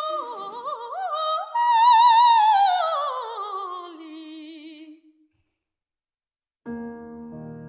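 Operatic soprano voice singing alone with wide vibrato: a loud high note about two seconds in sweeps down in a long falling line and fades out about five seconds in. After a short silence a grand piano comes in with soft sustained chords near the end.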